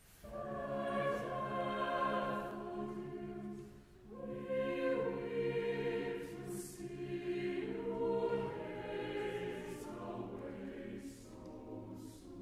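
Mixed choir singing a partsong unaccompanied, the voices entering together right at the start in sustained chords. There is a short break between phrases about four seconds in before the voices come back in.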